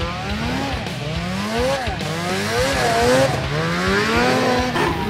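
Several racing snowmobile engines revving together, their pitch climbing and dropping again and again as the sleds accelerate and back off.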